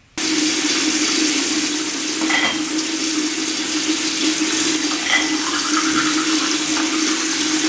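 Bathroom tap running steadily into a sink, a constant rushing hiss that comes in suddenly at the start.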